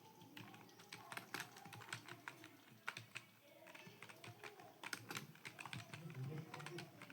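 Computer keyboard keys being typed in quick, irregular keystrokes during a timed typing test.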